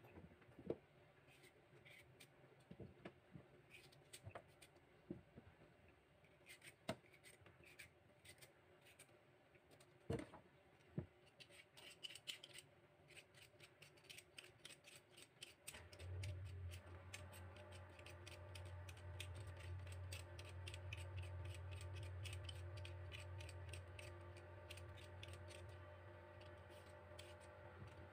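A hand vegetable peeler scrapes a green vegetable in quick, regular strokes through the second half. Earlier there are a few light knocks of vegetable pieces on a plastic cutting board. A low steady hum comes in about halfway through.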